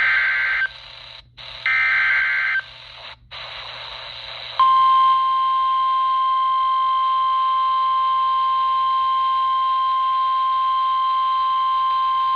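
NOAA Weather Radio Emergency Alert System warning, heard through a RadioShack 12-254 weather radio's speaker over steady static hiss. First come the last two of the three SAME header data bursts, each a harsh warbling squawk under a second long. Then, about four and a half seconds in, the long steady 1050 Hz warning alarm tone starts.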